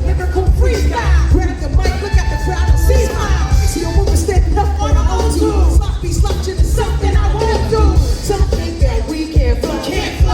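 Live hip hop music over a concert sound system, with a heavy, steady bass beat and a sung vocal line above it.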